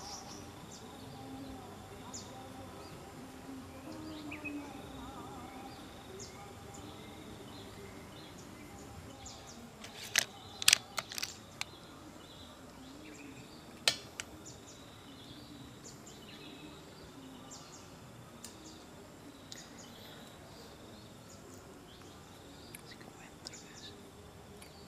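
Outdoor ambience of insects and scattered faint bird chirps over a steady low murmur, broken by a quick cluster of sharp clicks about ten seconds in and one more click a few seconds later.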